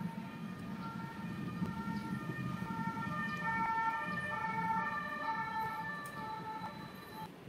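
Background music: a melody of held high notes stepping from pitch to pitch over a low hum, swelling in the middle and fading near the end.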